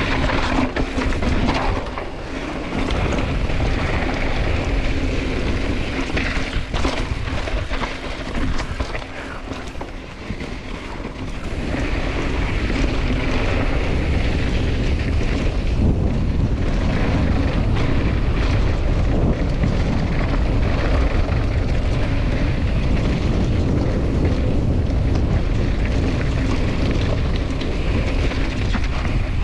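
Wind rushing over the microphone with heavy rumble from a mountain bike running down a dirt trail. It gets louder and steadier about a third of the way in.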